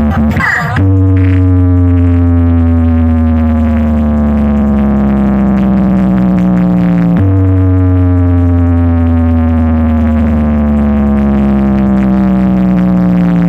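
Electronic music played very loud through a large DJ sound-box system: a distorted synth tone slides slowly down in pitch over a heavy sustained bass, then starts over from a higher pitch about seven seconds in.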